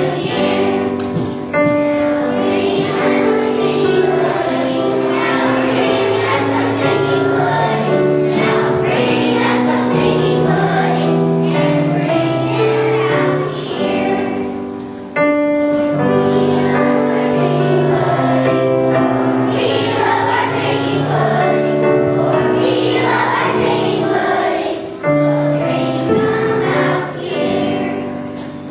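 A choir of young schoolchildren singing a song over musical accompaniment, with brief breaks between phrases.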